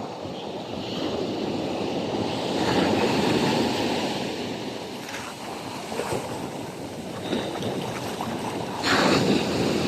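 Sea waves breaking and washing on the shore, the surf swelling and easing, with a louder rush near the end.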